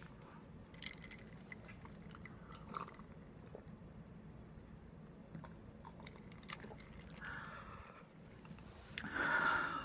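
Quiet chewing close to the microphone: scattered soft wet clicks and crunches, with a breathy whisper-like sound near the end.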